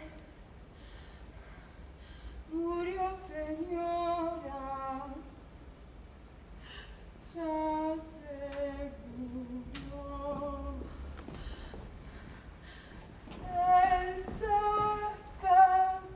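A woman singing unaccompanied in three short phrases with pauses between them, the first two falling in pitch.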